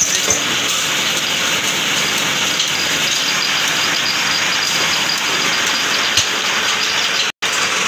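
Belt-driven metal-spinning lathe for forming aluminum cooking pots, running: a steady, dense mechanical whirr and hiss with a thin high whine over it. The sound drops out for an instant near the end.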